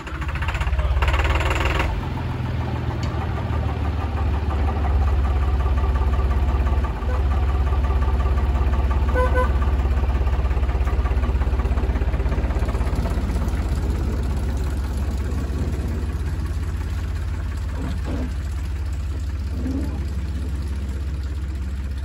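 Simplex narrow-gauge diesel mine locomotive's engine running with a steady low throb, growing gradually fainter over the second half as the locomotive pulls away along the track.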